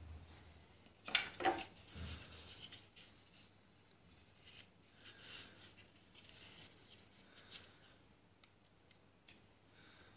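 Wooden replica gun parts being handled and fitted by hand: a few sharp wooden knocks and clicks about a second in, then light scraping, rubbing and small ticks.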